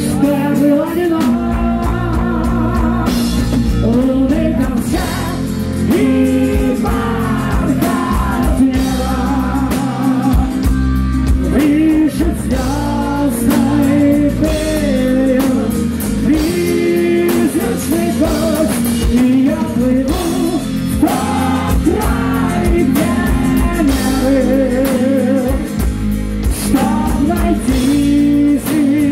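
Heavy metal band playing live: a male lead singer sings a melody with vibrato over electric bass, guitar and drums.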